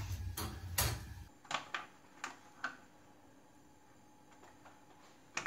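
A handful of light clicks and taps from handling a metal pizza pan while olives are pressed onto a cheese pizza, a few sharper ones in the first second and four fainter ones after, all in the first few seconds.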